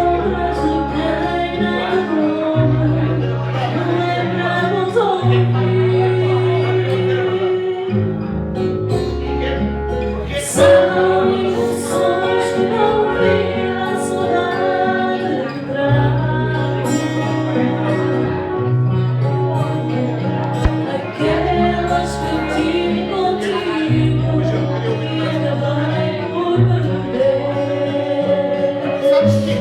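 A woman singing a fado over instrumental accompaniment, her melody sliding and held over long sustained bass notes.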